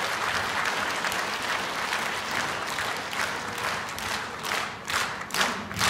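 Concert audience applauding in a theatre hall; near the end the clapping turns into rhythmic clapping in unison, about three claps a second.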